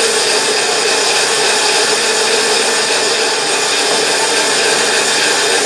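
Large woodworking bandsaw running steadily at speed, blade not yet in the wood.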